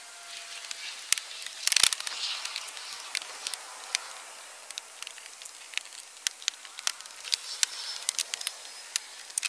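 Plastic lower rear bumper trim being worked loose by hand, giving scattered sharp clicks and taps, with a louder clatter about two seconds in.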